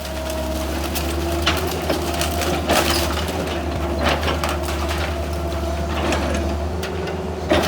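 Heavy demolition machinery running with a steady low engine drone, while wood and debris of the house crack and crunch in a series of sharp knocks as it is torn down.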